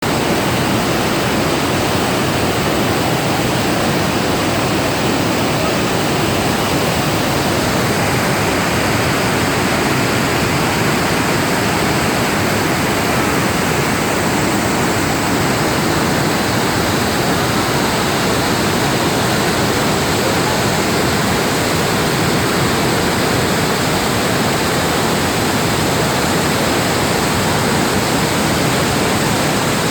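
Iguazu Falls waterfall: a huge mass of water plunging and crashing, a loud, steady roar of rushing noise with no let-up.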